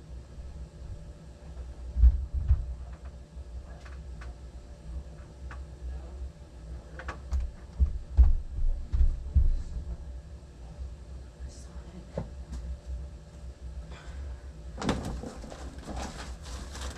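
The indoor blower of a 2012 Bryant Legacy Line central air conditioner is running as the system shuts down, a low throbbing hum with a faint steady tone. Several low thumps come through it, the loudest about 2 and 8 seconds in, and a broad rustling noise starts about 15 seconds in.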